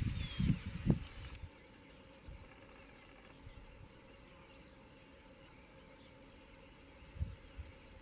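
A flock of starlings chirping and whistling faintly, a run of short, quick, high chirps from about three seconds in. A few low thumps near the start and again near the end.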